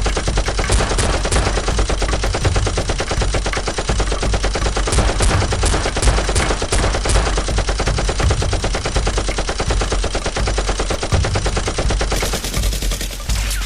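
Rapid automatic gunfire, many shots a second in one unbroken stream.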